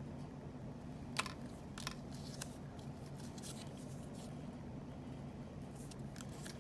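Paper die-cut pieces being shuffled and handled, giving a faint rustle with a few light clicks, twice within the first two seconds and again near the end, over a steady low background hum.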